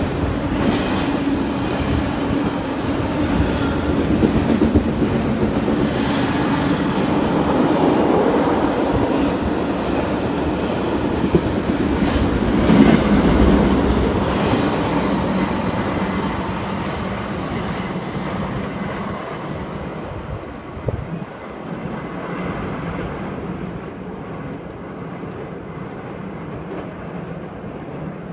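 Double-stack intermodal freight train rolling past, its cars rumbling and wheels clattering over the rail joints. In the second half the sound fades and turns duller as the last cars move away.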